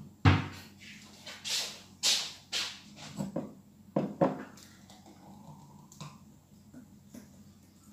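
Kitchen handling noises: a run of sharp knocks and clatters, the loudest just after the start, as a cupboard is shut and a glass and a blender jug are handled on the counter. After that comes a faint pour of thick banana smoothie from the jug into a glass.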